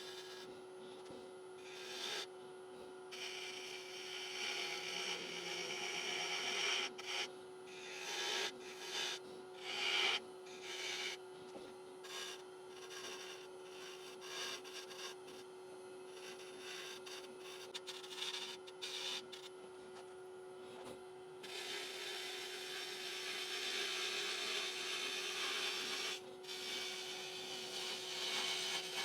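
Bowl gouge cutting a hard, spalted oak bowl blank on a running wood lathe: scraping cuts in short stretches with gaps between, then a longer continuous cut in the last third, over the lathe's steady hum.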